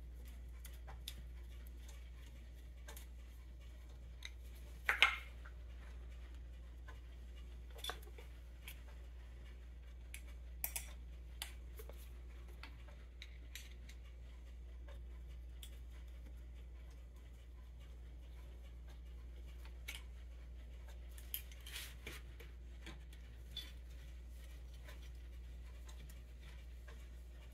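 Scattered light metal clicks and taps of a screwdriver and small parts against a Ford 8N tractor carburetor's body as it is screwed together, the sharpest clatter about five seconds in and a few more a little after twenty seconds, over a steady low hum.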